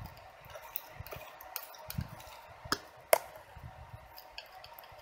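Metal palette knife mixing oil paint on a glass palette: a string of irregular light clicks and scrapes, the sharpest just after three seconds in.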